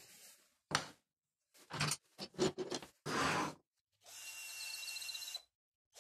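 Several knocks and clatters of tools handled on a wooden workbench, then a cordless drill runs steadily with a whine for about a second and a half, boring the tang hole into a wooden file handle. The drill starts again right at the end.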